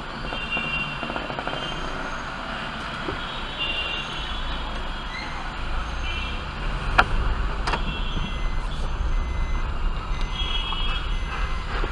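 Inside a Maruti Baleno RS pulling away slowly: low engine and road rumble that grows louder after about six seconds, with two sharp knocks close together near seven seconds. Short high-pitched beeps recur every second or few.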